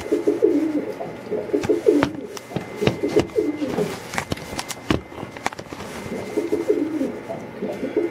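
Domestic pigeon cooing over and over, low bowing coos with a short pause midway. A few sharp knocks sound in the middle.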